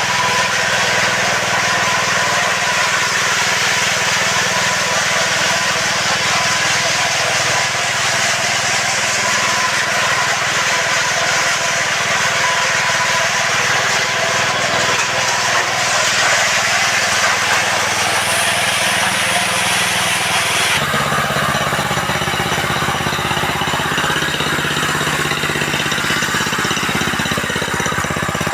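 TSUZUMI TX200 single-cylinder 196 cc four-stroke gasoline engine running steadily on a TSUZUMI TPT36-E power trowel. About 21 s in, its sound changes abruptly to a heavier, lower note.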